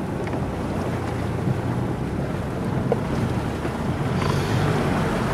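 Four-wheel-drive's engine running steadily at low revs as it creeps down the steep creek bank, getting somewhat louder about four seconds in, with wind buffeting the microphone.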